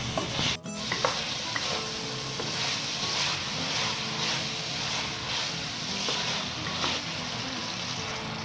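Minced meat and potatoes sizzling in a stainless steel pan while a wooden spatula stirs and scrapes through them, the sizzle swelling with each stroke about once a second. There is a brief gap in the sound just after the start.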